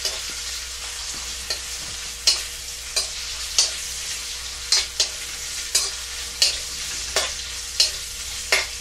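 Onion and garlic sizzling in a wok, with a steady frying hiss, while a spatula scrapes and clinks against the pan about once or twice a second as it stirs.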